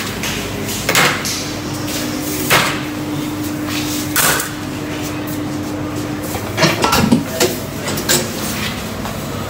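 Wire fryer baskets clanking against each other and the steel deep fryer as they are handled: separate sharp metal knocks every second or so, then a quick run of clanks about seven seconds in, over a steady kitchen hum.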